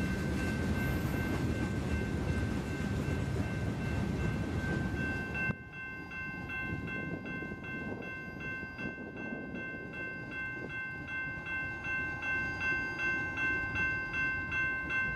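Mixed freight train's hopper and tank cars rolling past with a low rumble and wheel clatter, while a grade-crossing bell rings steadily. About five seconds in the sound cuts to a quieter rolling rumble, and the bell's strokes stand out at about two a second.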